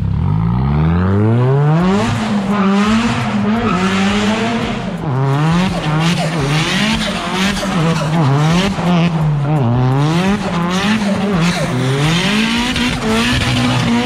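Toyota Starlet KP60's turbocharged 20-valve four-cylinder revving hard while the car drifts in circles. It climbs quickly in the first second or two, then swings up and down near the top of its revs over and over, with the rear tyres squealing as they spin and smoke.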